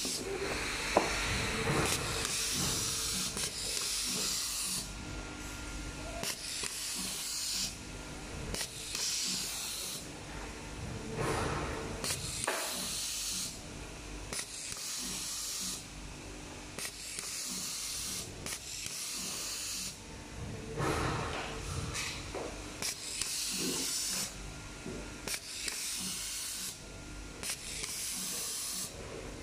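Automatic cable tie gun cycling over and over: a hiss of compressed air every couple of seconds as each nylon tie is blown through the feed hose to the gun, with sharp clicks as the tie is pulled tight and cut. A faint steady hum runs underneath.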